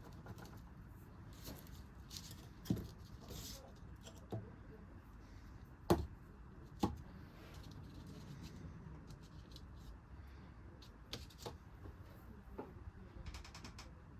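Irregular light clicks and taps of small objects being handled, with a few sharper knocks in the middle.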